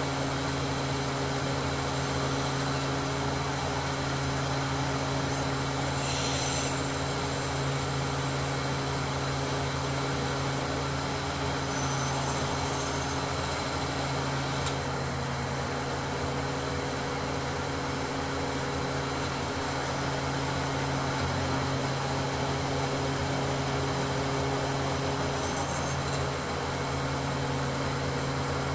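Mobile crane's diesel engine running at a steady speed during a lift, a constant drone with a single small click about halfway through.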